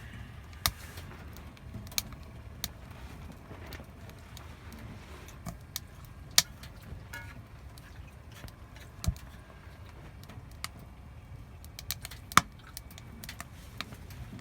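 Burning firewood crackling, with irregular sharp pops over a low steady rumble; the loudest pops come about six and twelve seconds in.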